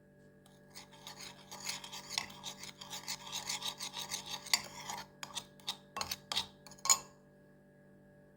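Quick rasping, rubbing strokes start about a second in and go on for several seconds. A few separate, sharper scrapes follow before they stop.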